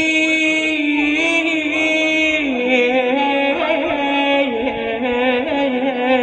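A solo voice singing an Iraqi abudhiya, holding long drawn-out melismatic notes whose pitch steps slowly downward with small wavering ornaments.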